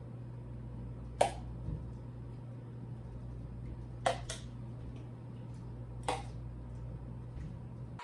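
Marinade containers and a spoon being handled, giving four short light clacks about a second, four seconds and six seconds in, over a steady low hum.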